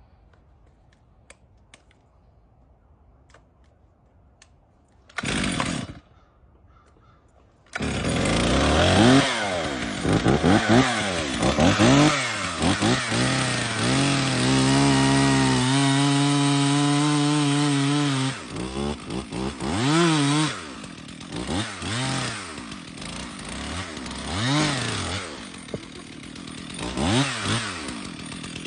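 Old 60cc McCulloch two-stroke chainsaw: a short burst about five seconds in, then the engine starts near eight seconds and is revved up and down over and over, held at a steady high speed for a few seconds midway.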